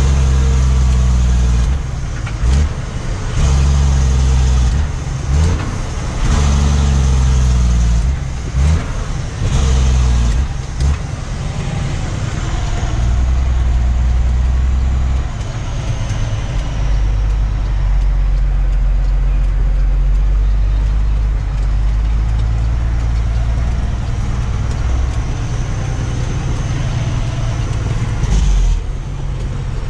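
Cummins ISX15 diesel engine of a tractor-trailer, heard from inside the cab while driving. The engine note dips and climbs again several times in the first ten seconds, then settles into a steady low drone.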